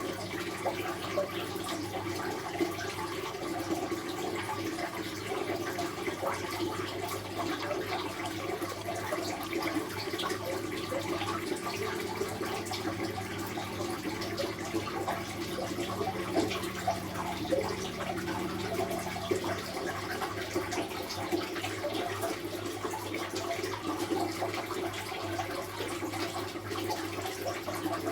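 Water flowing steadily, a continuous splashing, burbling rush with many small crackles and no pause.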